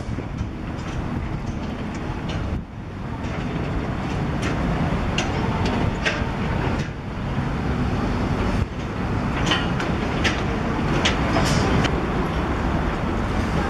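Diesel engines of a Komatsu PC120 hydraulic excavator at work and a concrete mixer truck running, a steady low rumble with sharp metallic clanks scattered through it, more of them in the second half.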